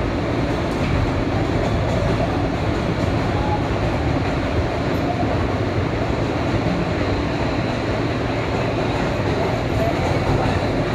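New York City subway N train running steadily along an elevated track, with the even noise of wheels on rail heard from inside the moving car.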